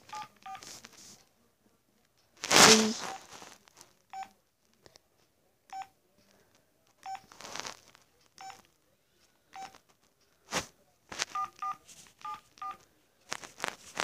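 Flip-phone keypad tones as buttons are pressed: short single beeps about once a second, then quicker pairs of beeps near the end. A louder rustle of the phones being handled comes a few seconds in.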